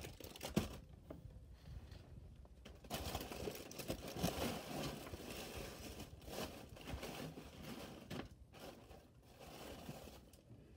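Clear plastic bags of foam beads crinkling and rustling as they are handled and rummaged through, with a few light knocks near the start.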